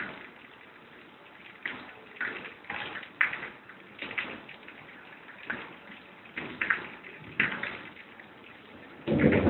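Rain during a night thunderstorm, a steady patter with irregular drips and splashes every second or so. Near the end a much louder, deeper roll of thunder begins.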